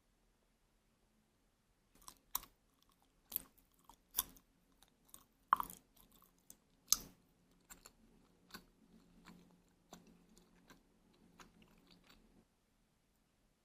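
Close-up eating sounds: someone chewing pieces of homemade injeolmi (soft glutinous rice cake in soybean flour), with irregular sharp mouth clicks. They start about two seconds in, go on for about ten seconds and stop abruptly near the end.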